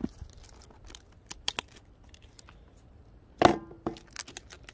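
Gift wrapping and a plastic bag being handled and unwrapped: scattered crinkles and crackles, with one louder, brief sound about three and a half seconds in.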